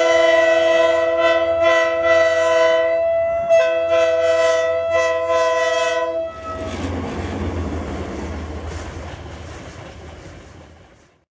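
Diesel locomotive's multi-tone horn sounding a long blast, breaking off about three seconds in and sounding again until about six seconds in. Then the rumble and rattle of the locomotive and its container wagons passing, fading away.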